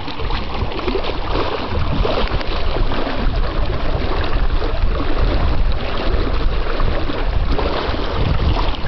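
Water rushing and splashing along the hulls of a Hobie Cat 18 catamaran under sail, with wind buffeting the microphone in a steady low rumble.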